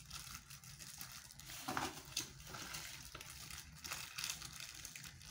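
Clear plastic wrapping crinkling and rustling in the hands as it is handled and unwrapped, in irregular bursts with a few sharper crackles.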